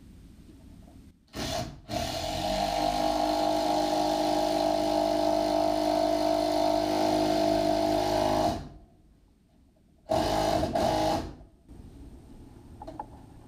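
Handheld power drill running into a wooden barn beam overhead: a brief blip, then a steady whine for about six and a half seconds, and after a pause a second short run of about a second.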